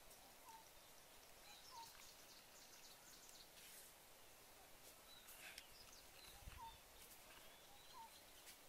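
Quiet outdoor ambience with a bird's faint short chirps repeating every second or so, and a few faint clicks.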